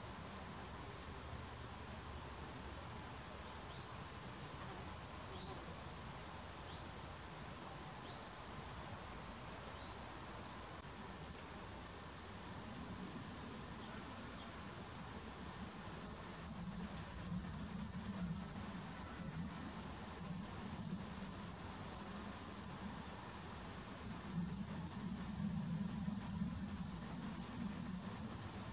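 Many short, very high-pitched chirps and squeaks from small animals, scattered at first and coming thick and fast from about eleven seconds in, over a faint low hum.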